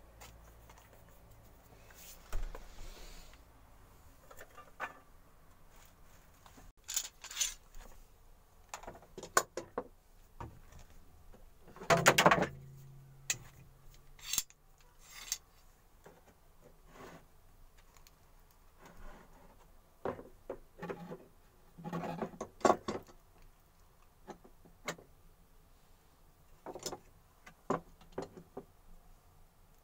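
Irregular workshop handling sounds: pieces of pallet wood and tools knocked, set down and rubbed. The loudest is a sharp knock about twelve seconds in.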